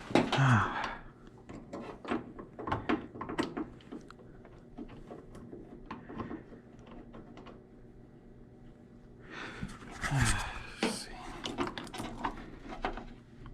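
Irregular light clicks and knocks of hands and tools working at a car battery, connecting the battery cables, with some breathing.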